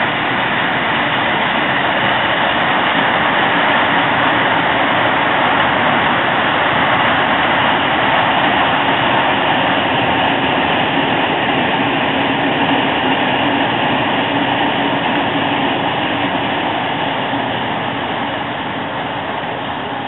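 Spoil train of open dump wagons passing close by: a steady rumble and clatter of wagon wheels on the rails, fading over the last few seconds as the train draws away.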